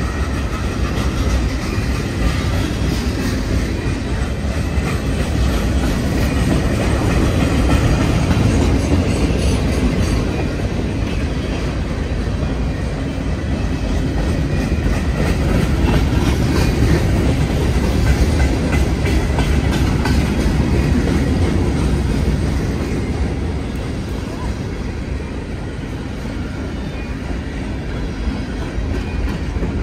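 Freight train of boxcars rolling past: a steady, heavy rumble of steel wheels on rail that swells and eases a little as the cars go by.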